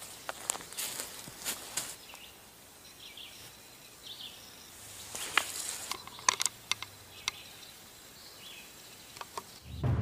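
Quiet outdoor ambience with scattered sharp clicks and a few faint, short chirps. A brief hiss comes about five seconds in.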